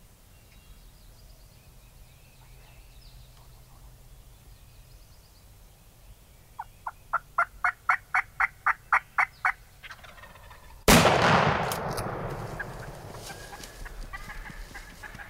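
A run of about a dozen wild turkey yelps, evenly spaced at about four a second. About a second later comes a single loud shotgun blast that echoes and fades over several seconds: the shot that takes the gobbler.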